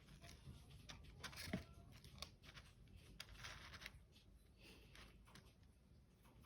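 Faint, irregular rustling and light scratching and clicking, with one slightly louder click about one and a half seconds in.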